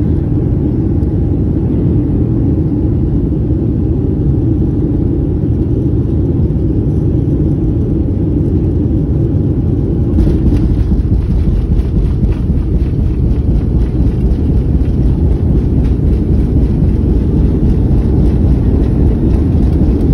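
Jet airliner cabin noise during climb-out after takeoff: a loud, steady low rumble of engines and airflow, which turns rougher with a fast crackle from about ten seconds in.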